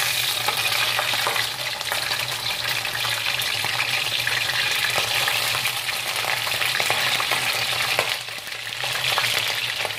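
Whole fish frying in hot oil in a wok: steady sizzling with dense crackling and spitting as the fish is turned over. The sizzle eases briefly about eight seconds in.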